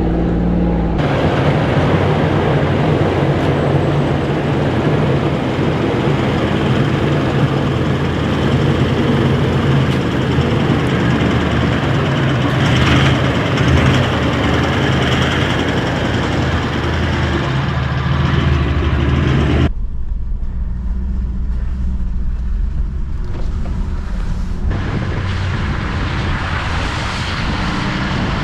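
Four-wheel drive vehicle driving on a dirt fire trail: a steady engine hum under the rumble of tyres on the track. The sound changes abruptly about a second in and again about 20 seconds in.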